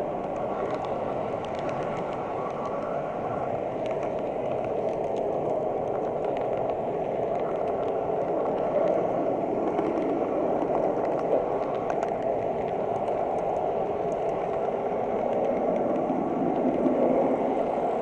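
Model train running on its track, heard from a camera riding on the train: a steady rolling rumble of wheels on the rails with scattered small clicks.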